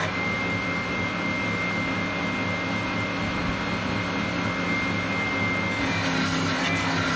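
A woodworking power tool running steadily under power, a continuous motor hum with a thin high whine.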